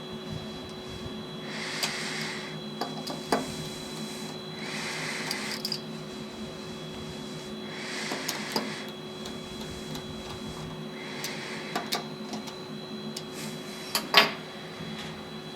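CNC milling machine running with a steady hum, a hissing swell coming back about every three seconds as the cutter passes, and a few sharp clicks, the loudest near the end.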